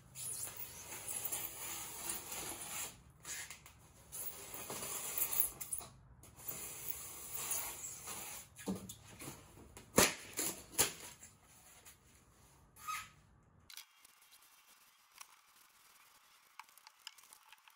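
Rigid foam insulation board scraping and rubbing under hands as the sheets are pressed and slid into place, with a few sharp knocks about ten seconds in. Much fainter for the last few seconds.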